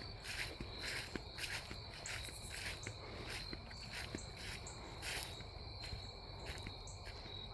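Insects calling in woodland: a steady high trill with rhythmic pulsed calls about two to three a second. Faint footsteps can be heard beneath them.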